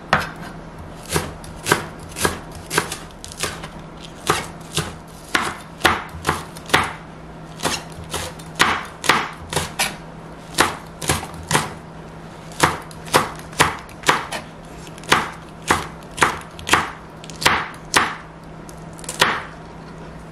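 Chef's knife slicing green onion and green chili peppers on a cutting board: sharp knife taps on the board at about two a second, unevenly spaced.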